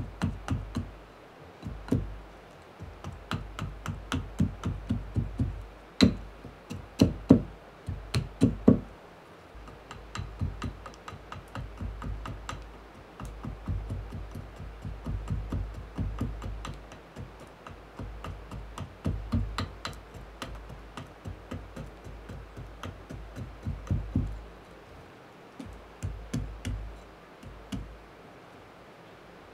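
Gränsfors Bruk carving axe hewing a birch spoon blank on a chopping block: quick runs of light chops, several a second, with a few harder blows about six to nine seconds in.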